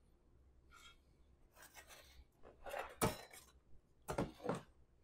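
Faint scraping of a metal ladle in a stainless sauté pan of cream sauce as sauce is ladled onto a plate, with two sharp clinks of ladle on pan, about three seconds in and just after four.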